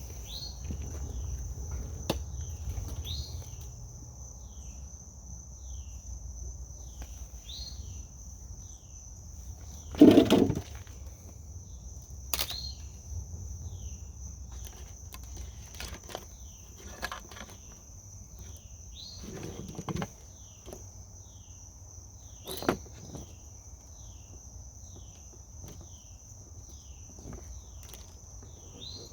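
Crickets or similar insects keep up a steady high drone, with a short falling chirp repeating about once a second. Scattered clicks and knocks from handling the wiring harness and parts break in, the loudest a thump about ten seconds in.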